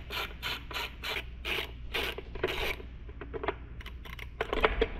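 A small hand tool working a fastener on a motorcycle's metal headlight bracket: a run of quick rasping strokes, about four a second, over the first half, then a few small clicks and a burst of louder metal clicks near the end.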